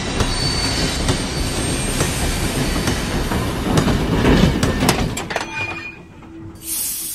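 Steam locomotive sound effect: wheels grinding and screeching along the rails, with a burst of clattering about four seconds in. It dies down about six seconds in, and a steam hiss starts near the end.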